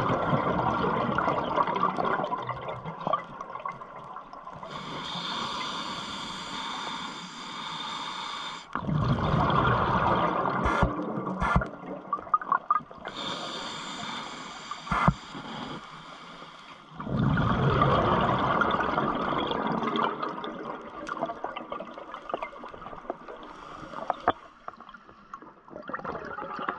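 Scuba diver breathing through a regulator underwater: bubbling exhalations at the start, about nine seconds in and about seventeen seconds in, with a steady hiss of inhalation through the regulator between them.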